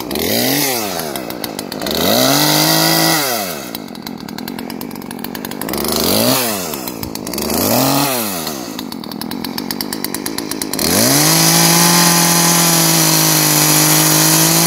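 Poulan 3314 two-stroke chainsaw revved in four short bursts that climb and fall back to idle, then held steady at full throttle for the last few seconds as it cuts through the trunk of a small spruce.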